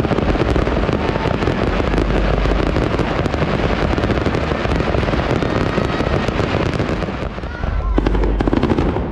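Fireworks display: a dense, continuous crackle of many rapid pops and bursts, easing briefly near the end before a few sharper bangs.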